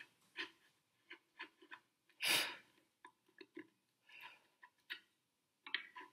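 Hand chisel paring a hinge mortise in ash: a string of short, quiet scraping cuts and ticks, with one longer stroke about two seconds in.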